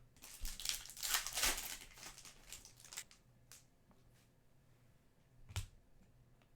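Trading cards and a card pack wrapper being handled: a crinkling, rustling stretch for about the first three seconds, then a few light clicks and taps, the loudest about two-thirds of the way in.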